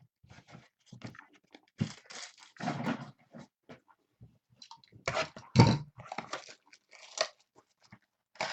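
Trading card pack wrapper being torn open and crinkled, with cards shuffled and handled: irregular crackling and rustling, loudest about five to six seconds in.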